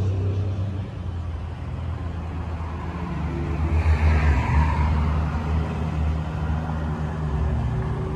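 2003 Chevrolet Silverado pickup engine idling with a steady low note. A brief rushing noise swells about four seconds in.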